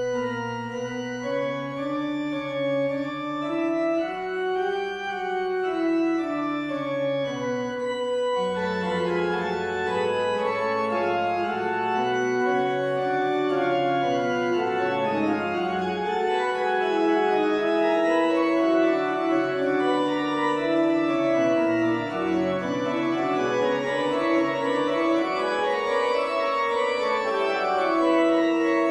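Background music on an organ-like keyboard: slow, sustained chords, with more moving notes coming in after about eight seconds.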